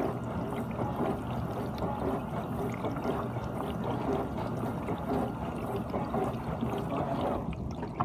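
GE dishwasher partway through its cycle, water spraying and sloshing steadily inside the tub.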